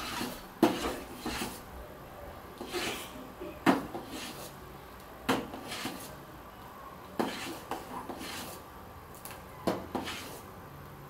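Steel ladle stirring thick aval payasam in a stainless steel pot, clinking and scraping against the pot's sides and bottom. The sharp metal knocks come every second or two, with softer scraping strokes between them.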